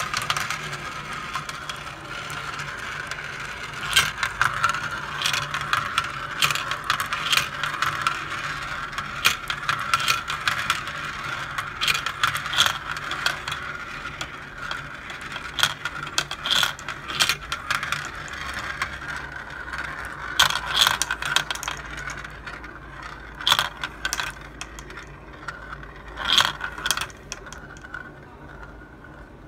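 Glass marbles rolling round the plastic funnel bowls of a toy marble run, a steady rolling whir broken by many irregular sharp clicks as marbles knock together and drop through the holes onto the pile of marbles below. The clicking thins out near the end.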